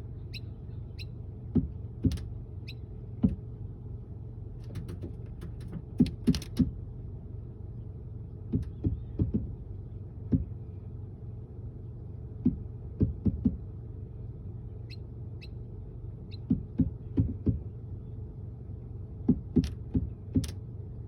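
A pet bird tapping and pecking at a mirror: short sharp taps in quick clusters of two to four, every second or two, with a few faint brief chirps, over a steady low hum.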